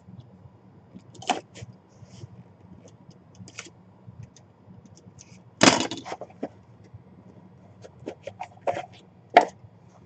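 A small cardboard box being handled and opened by hand: scattered short scrapes, taps and rustles, the loudest one a little past halfway and a quick run of them near the end.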